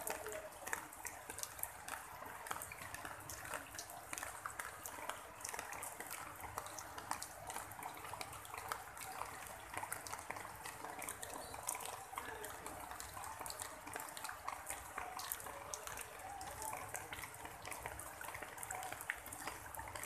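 Rain falling on broad plant leaves and wet ground: a steady hiss full of many small, scattered drop hits.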